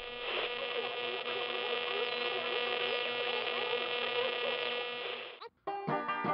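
Radio-tuning sound effect: a steady electrical buzzing hum with faint short whistles sliding up and down, as if between stations. It cuts off about five and a half seconds in, and banjo music starts right after.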